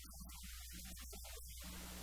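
A steady low hum under a haze of static hiss, with faint garbled fragments breaking through.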